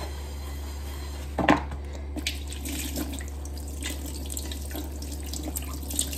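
Kitchen tap running into a sink while a non-stick frying pan is rinsed under it, the water splashing off the pan. There is a single knock about one and a half seconds in, and the splashing carries on steadily from about two seconds in.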